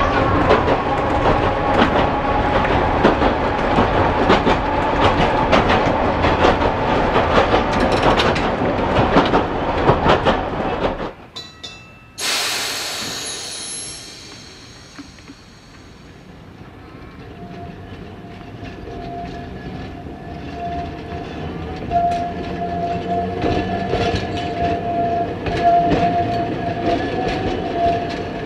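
Heritage electric tram running on its line: a dense rumble and clatter of wheels on rail with a steady whine from the motors and gears, heard from on board. It stops abruptly, a sudden high sound fades over a couple of seconds, then a vintage Fremantle Municipal Tramways tram runs slowly past with a steady high whine and occasional clacks of wheels over the rail.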